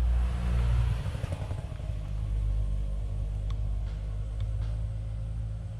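A steady low rumble, loudest in the first second, with a few light clicks about three and a half and four and a half seconds in.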